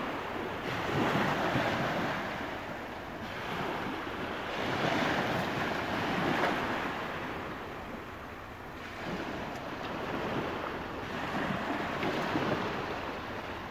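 Small waves breaking and washing up a sandy beach, the surf swelling and fading every four to five seconds, with some wind on the microphone.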